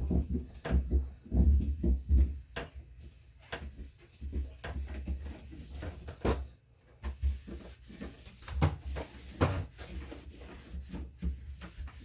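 Cloth wiping out the inside of a refrigerator, with irregular knocks, bumps and deep thuds as hands and cloth work into the corners and shelf grooves.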